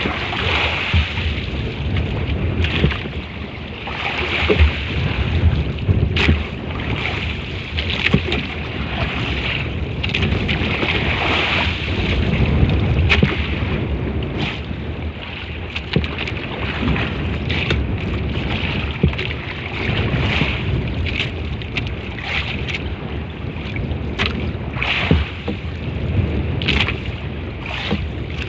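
Wind buffeting the microphone on a small boat at sea, with water rushing and splashing and scattered sharp knocks throughout.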